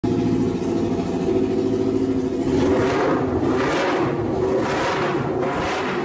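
Honda CBR250RR's parallel-twin engine running through a racing pipe exhaust, at first steady, then blipped about once a second from a couple of seconds in.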